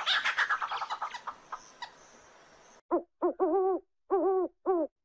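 An owl hooting: a quick run of about six short hoots in the second half, several with a rise and fall in pitch. It is preceded by a harsh, crackling burst that fades out.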